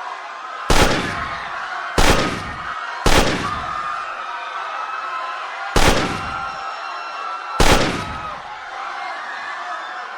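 Gunshots fired singly at irregular intervals, five in all, each a sharp crack with a short echoing tail, over a panicked crowd's continuous screaming and shouting.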